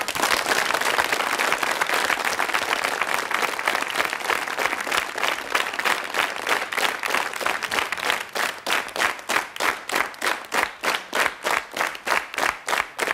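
Studio audience applauding as a song ends, the scattered applause settling about halfway through into clapping in unison, about three claps a second.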